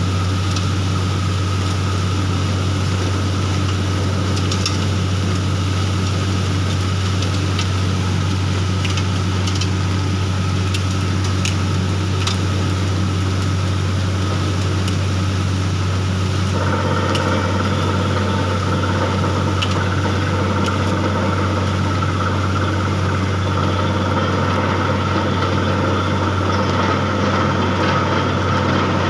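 Borewell drilling rig running steadily, with a strong low engine hum, as water and cuttings are blown out of the bore. A few faint ticks come in the first half, and about 17 seconds in a higher steady tone joins the drone.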